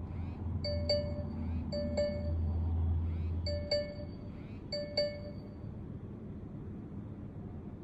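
Smartphone's electronic call-on-hold ringtone from Google Duo on a Samsung Galaxy Note 10 Lite: four short bright chimes in two pairs, each pair about a second apart, stopping about five seconds in, over a low hum.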